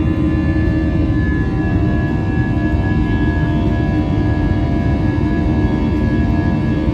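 Airbus A320's IAE V2500 turbofan engines running at high thrust, heard from inside the passenger cabin: a loud, steady low rumble with several steady engine tones over it.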